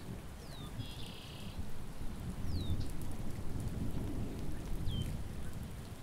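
Steady rain with a low thunder rumble rolling in slow swells, and a bird's short, high chirps falling in pitch about every two seconds.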